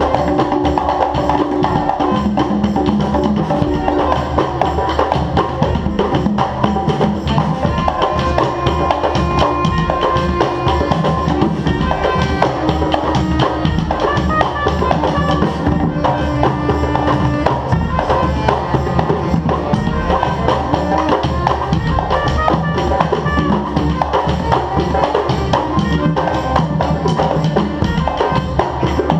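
Live band music led by drums and hand percussion, a steady, busy beat with wood-block-like clicks, with a few held pitched notes over it.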